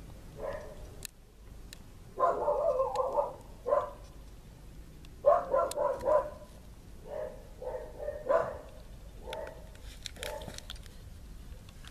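A dog barking repeatedly, single barks and quick runs of barks coming every second or two.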